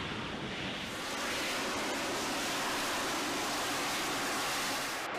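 Steady rushing jet-engine noise of an AV-8B Harrier hovering on its vectored-thrust turbofan. It gets brighter and a little louder about a second in.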